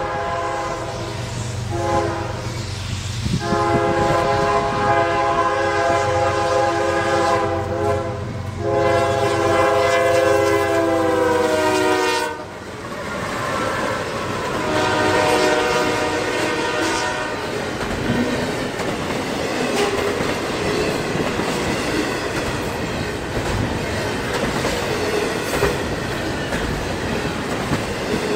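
A CSX freight train's diesel locomotives sound a multi-chime air horn in long blasts as they approach a level crossing, the grade-crossing warning, over a low diesel engine drone. The horn cuts off suddenly as the locomotives pass about twelve seconds in, and one shorter blast follows a few seconds later. After that comes the steady rumble and wheel clatter of double-stack intermodal container cars rolling past.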